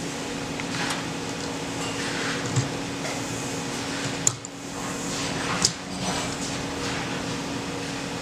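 A few short clicks and knocks, about three, as the door's glass frame cover is pulled out piece by piece, over a steady hum.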